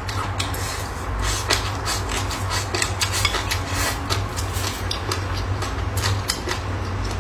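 Crisp cucumber peel being chewed close to the microphone: irregular crunching clicks throughout, over a steady low hum.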